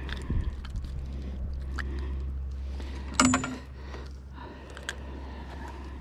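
Handling noise as a landed speckled trout is unhooked: a sharp metallic clink about three seconds in and a few lighter clicks, over a steady low rumble that eases off after the clink.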